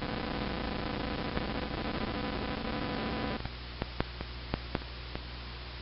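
Steady electrical buzz and hiss from the recording setup, with mains hum. About three and a half seconds in the hum drops slightly, and a handful of short sharp clicks follow: mouse clicks as the finished download is closed and opened.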